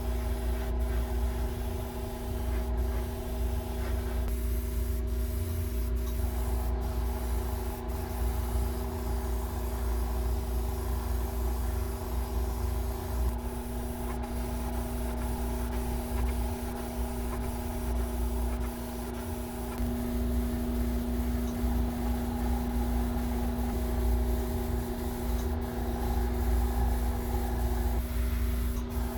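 Airbrush compressor motor running steadily with a low hum, while an airbrush sprays paint.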